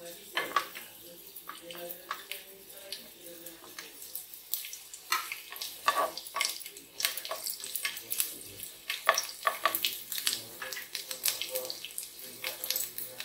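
Garlic frying in a spoonful of cooking oil in a frying pan: an irregular sizzle with many small crackles and pops.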